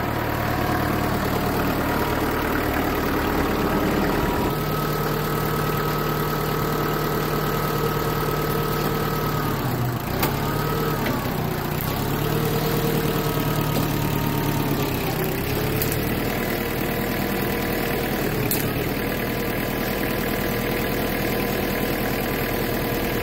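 Kioti tractor's diesel engine running steadily, its note stepping up about four seconds in and dipping briefly a couple of times as the load changes.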